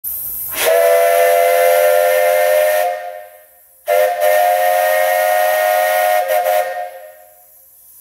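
A 3-inch three-chime Buckeye steam whistle blown twice on steam, each blast a steady three-note chord about two and a half seconds long. A steam hiss leads into the first blast, and the second wavers briefly just before it stops.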